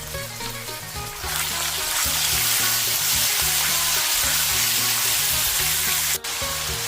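Chicken frying in hot oil in a pan: a loud, steady sizzle that swells up about a second in, with a brief break near the end, over background music.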